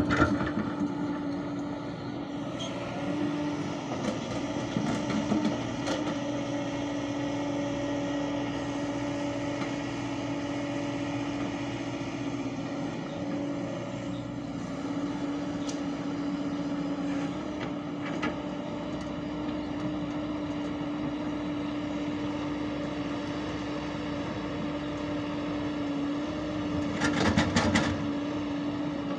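Hyundai 140 excavator's diesel engine and hydraulics running steadily under load, with a constant hum, as it digs and swings. Soil pours loudly into the steel body of a Tata tipper at the very start and again about 27 seconds in.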